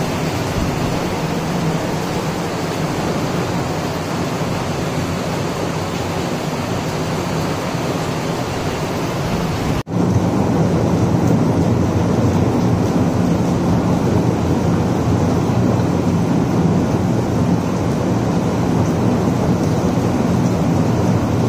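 Rain falling steadily, an even hiss. It cuts out for an instant about ten seconds in and then carries on a little louder, with more low rumble.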